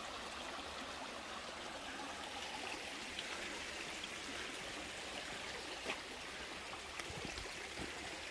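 A small mountain creek running over rocks: a steady rushing trickle of water, with a few faint knocks in the second half.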